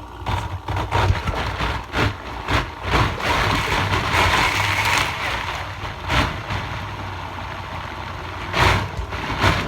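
Countertop blender motor running on low, puréeing hot cooked apricot and pineapple jam, with a louder stretch of whirring in the middle and several sharp knocks. The motor cuts off at the end.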